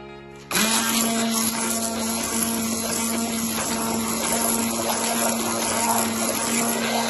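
Electric mixer switched on about half a second in, then running steadily at one speed with a constant hum as it beats egg, butter and milk into a batter.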